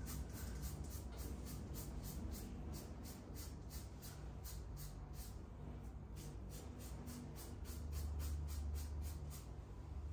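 Razor scraping over a lathered scalp during a head shave, in short quick strokes about three a second, pausing briefly midway and again near the end.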